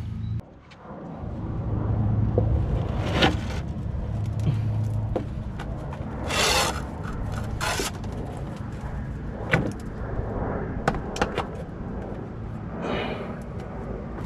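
Steel sheet metal scraping, clanking and knocking as a loosely attached floor patch is pried and pulled off the rusted-out floor of a Jeep Cherokee XJ from underneath. Scattered sharp knocks, with two longer harsh scrapes near the middle.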